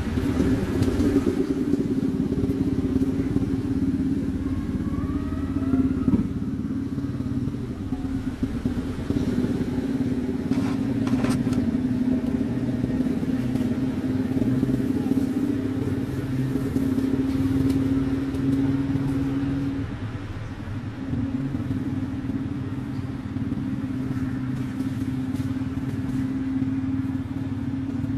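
Steady motor hum, like a vehicle engine running at a constant speed, with a brief dip about twenty seconds in.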